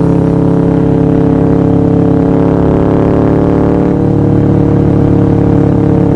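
Harley-Davidson Sportster 1200 Stage 4 V-twin engine running at a steady cruise, its note holding nearly even with a slight dip in pitch early on.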